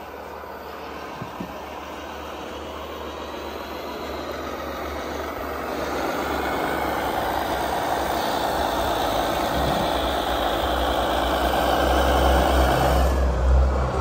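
Radio-controlled model semi-truck pulling a loaded tipper trailer, running with a steady truck-engine sound. The sound grows louder as the truck drives up close, and it is loudest near the end.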